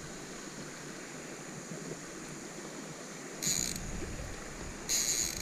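Fishing reel cranked in two short bursts, about three and a half and five seconds in, over a low steady outdoor hiss.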